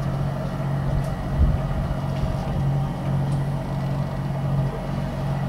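A cruising boat's engine running steadily underway: a low, even drone.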